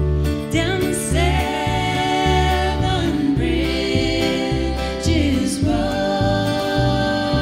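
Live acoustic string band playing: upright bass plucking a steady pulsing line under acoustic guitar and fiddle, with women's voices singing long held notes in harmony.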